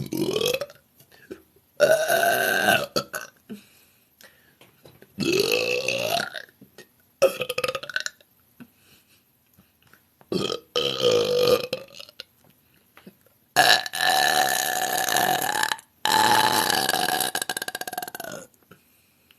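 A woman belching: a series of about seven burps with short pauses between them, the last two drawn out for over two seconds each.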